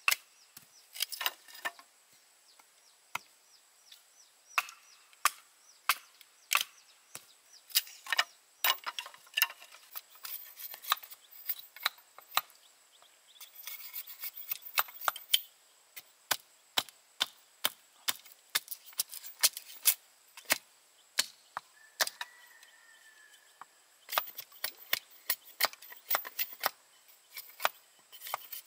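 Bamboo being chopped with a blade: sharp, irregular strikes, a few a second, with short pauses.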